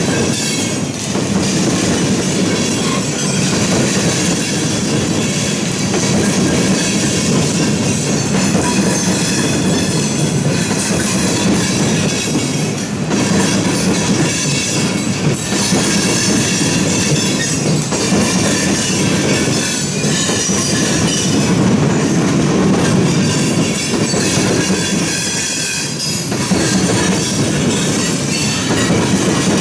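A train's railroad cars rolling past close by: a steady, loud rumble and clatter of steel wheels on rail, with some high wheel squeal running through it.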